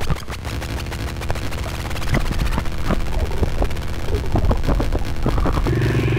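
Chaotic electronic noise from a Benjolin synthesizer patched with a Ciat-Lonbarde Fourses: a dense hiss full of irregular clicks and pops over a low steady hum. Near the end a steady low drone comes in.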